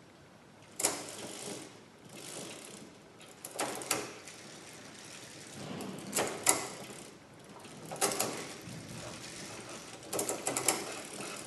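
Bicycle chain and derailleur working on a trike's rear multi-speed freewheel cluster as the drivetrain is turned. It rattles steadily, with about five louder clattering bursts a couple of seconds apart as the chain is shifted up and down between the cogs. This is a check of the newly adjusted high and low travel limits.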